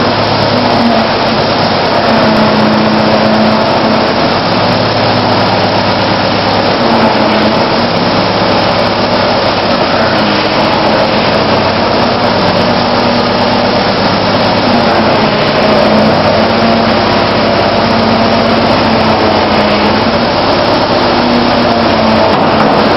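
Case 420 skid-steer loader's engine running loud and steady, its pitch dipping and rising a little as the machine is driven and its lift arms raise the bucket.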